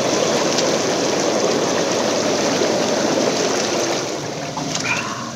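Bestway Lay-Z-Spa Miami inflatable hot tub's air-bubble jets churning the water: a steady rushing, frothing hiss that eases off a little near the end.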